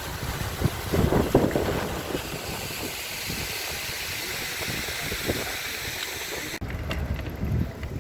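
Wind buffeting the microphone over a low, uneven rumble while riding a bicycle, with a few knocks about a second in. Near the end the hiss cuts off suddenly and the rumble goes on.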